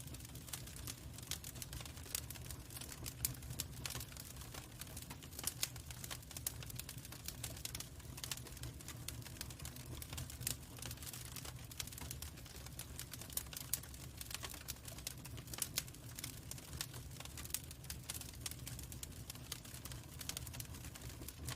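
Log fire crackling, with frequent irregular sharp pops and snaps over a steady low rumble.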